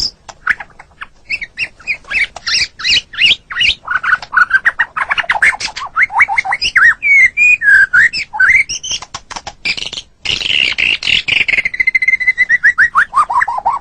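White-rumped shama (murai batu) singing a rapid, varied song of repeated whistled notes and slurred phrases. There is a brief break about ten seconds in, then a fast run of notes that drops in pitch near the end.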